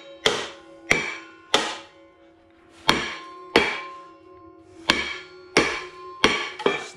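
Hammer blows on the rusted brake rotor and caliper at the end of a Ford 8.8 rear axle, about eight sharp metal strikes, each ringing briefly, with a short pause near the middle. The blows are meant to free a rotor seized to its brake pads by rust.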